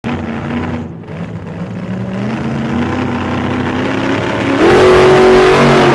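Motor vehicle engine revving, its pitch sliding up and down, then rising sharply and getting louder about four and a half seconds in.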